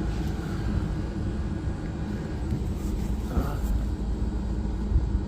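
Rooftop HVAC unit running: a steady low rumble with a faint even hum.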